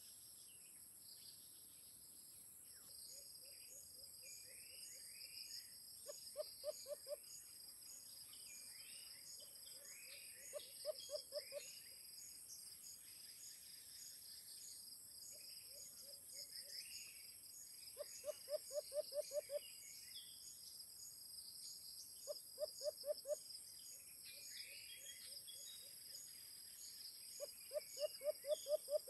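White-eared brown dove cooing in repeated bursts: low, quick coos run together, each series lasting about a second and recurring about eight times, some louder than others. A steady high insect buzz and faint chirps of small birds run underneath.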